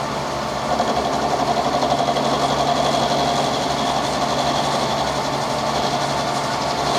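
Milling machine running and taking a 2 mm cut along a steel spanner jaw: a steady motor hum with rough cutting noise that gets louder about a second in. It is a cut that is a little too much for the machine.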